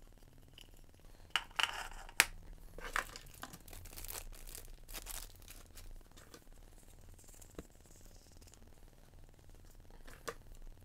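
Clear plastic parts bags crinkling and rustling as they are handled and laid down, with a few sharp clicks and taps, busiest in the first half.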